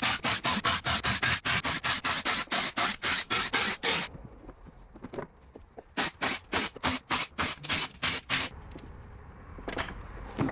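Ratchet wrench clicking in quick back-and-forth strokes, about five a second, as bolts are backed out of the transmission pan and the mechatronics unit. The clicking comes in two runs with a short pause between.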